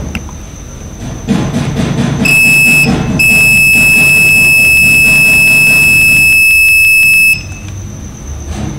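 Digital multimeter's continuity buzzer giving a steady high beep, first briefly about two seconds in, then held for about four seconds as the probes stay across the rectifier bridge. The beep signals a short: the rectifier bridge is shorted.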